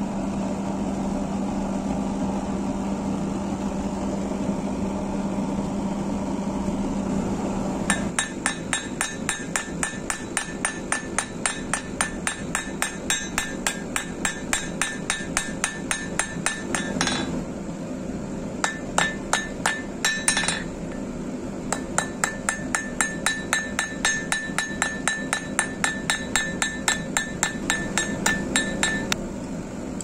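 Gas forge burner running with a steady hum. From about eight seconds in, a hand hammer strikes a red-hot stainless steel knife blade on an anvil about three times a second, each blow ringing, with two short breaks.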